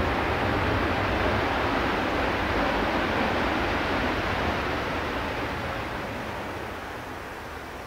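Jet engines of a Boeing 787-8 (Rolls-Royce Trent 1000) running as the airliner rolls out on the runway after landing. The steady noise fades away over the last few seconds as the aircraft slows.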